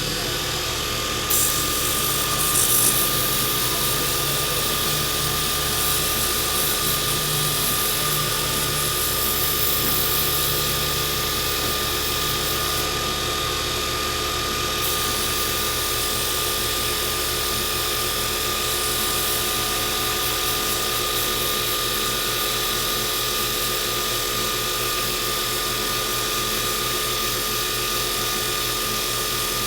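Wood lathe motor running steadily, with the hiss of a carbide turning tool cutting the spinning dyed, stabilized burl pen blank. The cutting swells and eases off at times.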